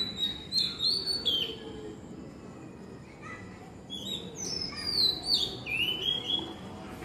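Oriental magpie-robin singing: clear whistled notes and slurred glides, in one phrase at the start and a second, longer phrase from about four seconds in.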